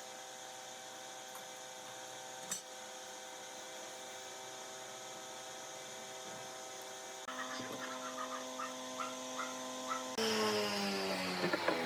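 Steady hum of several even tones, with a single click early on; about two-thirds through the tones change, and near the end a louder set of tones slides downward in pitch.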